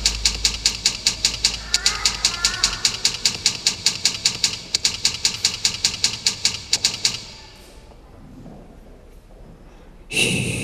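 Rapid, very even clicking, about five clicks a second, which stops about seven seconds in. Near the end a sudden louder sound starts.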